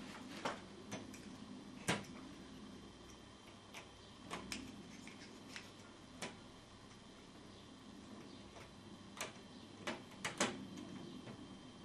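Sharp, irregular clicks and taps of crocodile-clip test leads being handled, unclipped and clipped onto wires in a plastic ceiling rose. The loudest click comes about two seconds in, and a quick cluster comes near the end, over a faint low hum.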